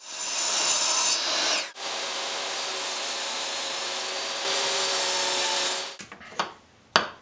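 DeWalt jobsite table saw running and cutting through a glued-up maple blank. The noise is loudest for the first second and a half, then holds steady until it cuts off abruptly about six seconds in. Two sharp knocks follow near the end.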